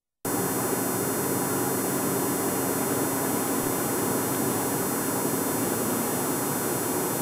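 Steady road and engine noise of a car cruising on a highway, heard from inside the cabin as an even hiss with a faint buzz; it starts abruptly about a quarter second in.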